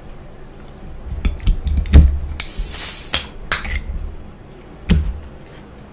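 A carbonated soda being opened: a sharp crack about two seconds in, then a short hiss of escaping gas, with a few taps and knocks of containers around it.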